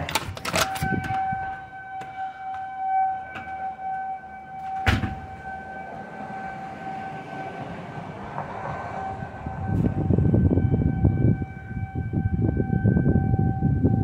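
Outdoor civil-defense warning siren sounding a steady single-pitch wail, sounded as a thunderstorm warning. A door clicks open at the start and shuts with a knock about five seconds in. From about ten seconds in a loud low rushing noise, wind on the microphone, rises over the siren.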